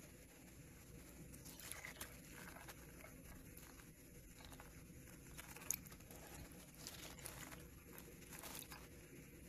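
A hand stirring and scooping soaked adzuki beans in a bowl of water: faint wet sloshing and the soft clicking of beans against each other, with one sharper click a little over halfway through.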